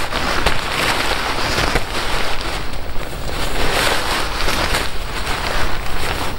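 Nylon fabric of a Snugpak Stratosphere bivi bag rustling and crinkling as it is handled and unpacked close to the microphone, in irregular swells.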